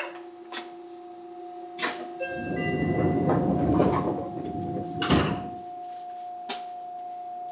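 Inside a standing Seibu 2000 series electric train: a steady electrical hum with a few sharp clicks and knocks. About two seconds in comes a rush of noise lasting about three seconds, ending in a knock.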